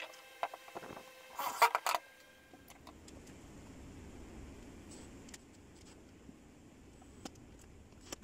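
Metal drawer slides and tools being handled: sharp clicks and metallic clatter, loudest in a brief rattle about one and a half seconds in. After that, only faint occasional clicks over a low steady hum.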